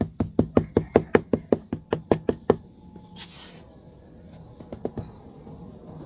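A fast, even run of hard knocks, about five or six a second, that stops about two and a half seconds in; a few softer knocks follow near the end.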